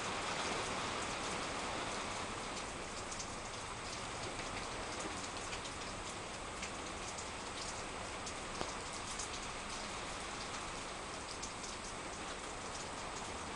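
Steady rain, a continuous hiss with many small ticks of drops landing.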